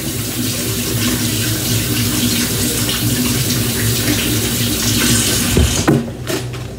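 Kitchen sink tap running while hands are washed under it, shut off about six seconds in, followed by a few light knocks.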